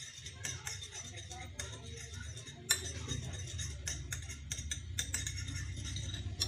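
Metal spoon clinking and scraping against a ceramic plate while stirring a sauce, in quick irregular taps with one louder clink about three seconds in, over a low steady hum.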